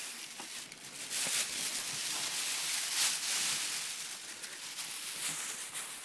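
A clear plastic bag crinkling and rustling as it is handled, an irregular crackle.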